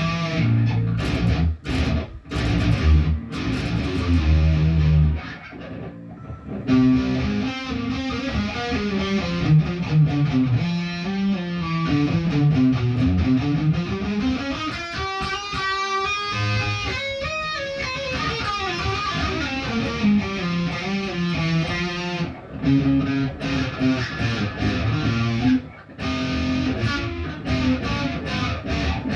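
Guitar being practised. Chords are played with short stops over the first few seconds, then runs of single notes climb and fall in pitch.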